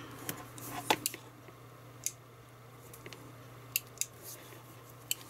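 A handful of short, sharp clicks and taps as a plastic-bodied electric desoldering pump is handled and turned over, over a faint steady low hum.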